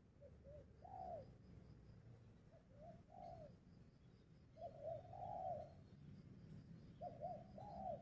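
Spotted dove cooing faintly, four phrases a couple of seconds apart, each two or three short notes leading into a longer arched note.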